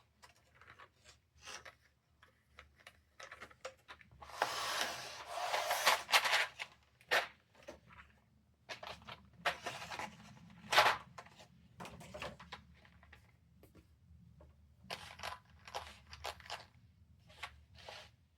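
Hands handling a low-profile mechanical keyboard and its packaging: scattered clicks and light knocks, with a noisy rubbing, rustling stretch of about two seconds some four seconds in.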